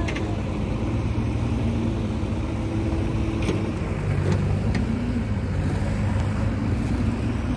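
Sonalika Sikandar DI 50 RX tractor's diesel engine running steadily under load as it pulls a fully loaded trailer of soil, with a few light clicks about halfway through.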